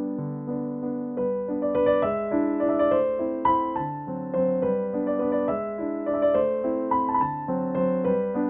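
Background music: a gentle piano melody of struck notes.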